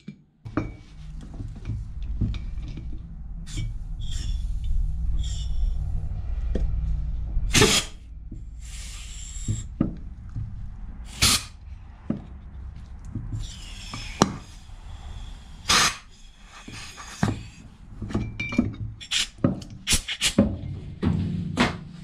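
Irregular knocks and clicks of hand work on a brake caliper: the piston being pressed back in through its new seal and rubber dust boot.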